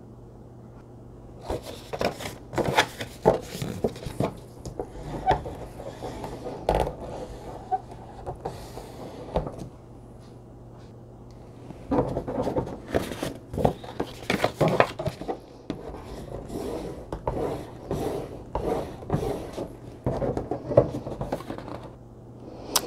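Cardstock cards being folded and their creases pressed flat with the end of a handheld crafting tool: irregular scraping, rubbing and light taps on the table, in two runs with a short pause about halfway.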